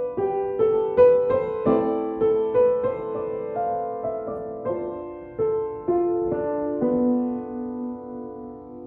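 Improvised solo keyboard music with a piano-like tone: a slow melody of single struck notes, each fading away, over held lower notes.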